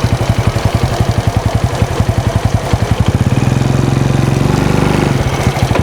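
Small engine running close by, with a fast, even low throb; from about three seconds in it turns smoother and steadier.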